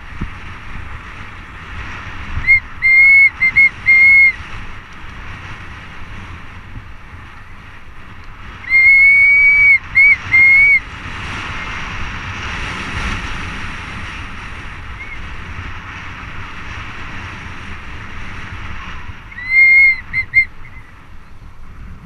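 Mountain bike brakes squealing in three spells of short, high, steady-pitched bursts: about two and a half seconds in, around nine seconds in, and near the end. Underneath runs a steady rush of wind on the microphone and tyres rolling over a dirt trail.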